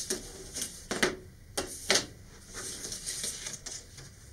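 Cut-out card-stock pieces being handled and lifted on a cutting mat: about five sharp taps and paper rustles over the first two seconds, then softer rustling.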